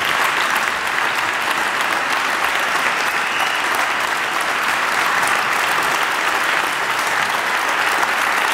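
Audience applauding steadily, many people clapping their hands at once.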